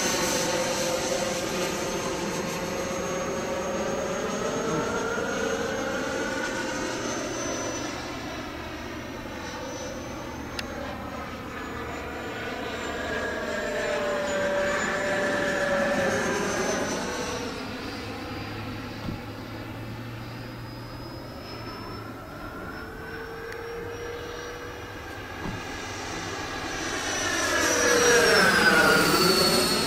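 FMS Super Scorpion RC jet's 90mm electric ducted fan whining steadily as the model flies overhead. The sound swells and fades with each pass, and the loudest, closest pass comes near the end, its pitch dropping as it goes by.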